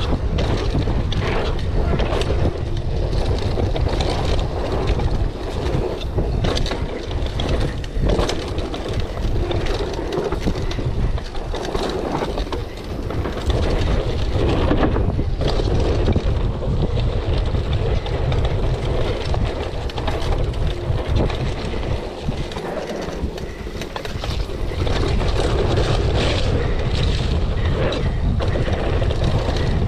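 Wind buffeting the microphone during a mountain-bike descent, with the bike knocking and rattling over bumps on a slippery, muddy trail.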